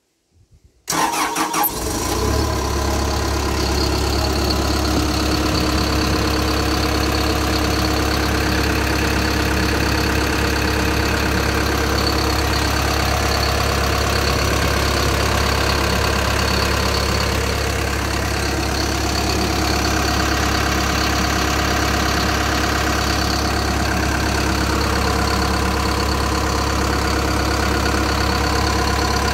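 Komatsu SAA4D107E-1 four-cylinder turbocharged diesel starts about a second in and settles into a steady idle, heard close up over the open engine bay.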